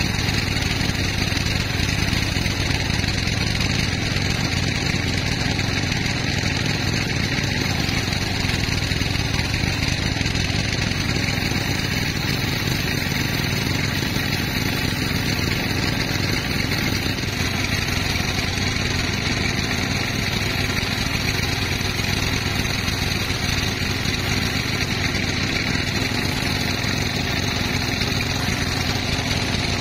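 Sawmill machinery running steadily, a continuous engine-like drone that does not change in pitch or loudness.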